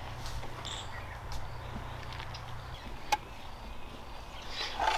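Faint open-air background with a low steady hum that stops a little under three seconds in, a few faint high chirps and light clicks, and one sharper click just after three seconds.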